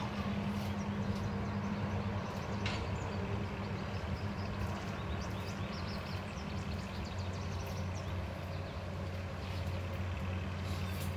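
An engine running steadily, a low even hum.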